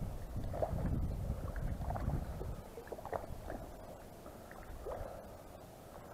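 Low rumbling wind and handling noise on the microphone, loudest in the first two and a half seconds, with a few faint short chirps scattered through.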